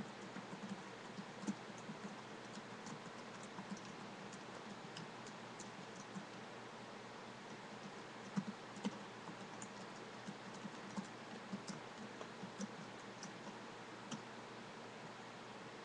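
Typing on a computer keyboard: irregular, sparse keystroke clicks with a few louder taps, over a steady hiss.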